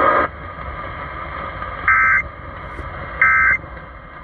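Emergency Alert System end-of-message data bursts heard on an AM car radio: two short, harsh digital screeches a little over a second apart, with radio hiss between them. They mark the end of the alert message.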